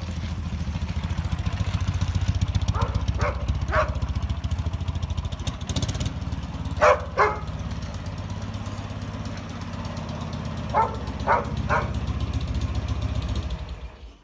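Ural M-62 sidecar motorcycle's flat-twin engine running at low speed with a steady exhaust beat, cutting off just before the end. A dog barks over it in groups of two or three.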